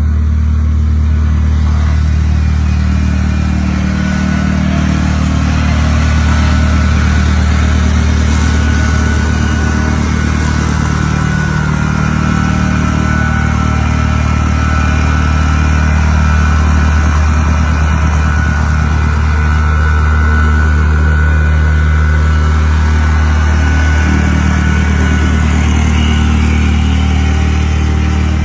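Engine of a construction machine running steadily, its level swelling and easing slightly every few seconds.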